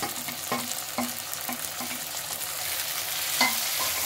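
Chopped onion, tomato and ginger sizzling in hot oil in a kadhai, with utensils being stirred and knocking against the pan a few times. The loudest knock comes near the end.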